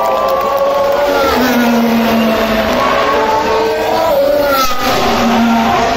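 Formula 1 car passing at speed, its 1.6-litre turbocharged V6 engine note stepping down in pitch and climbing again as it changes gear.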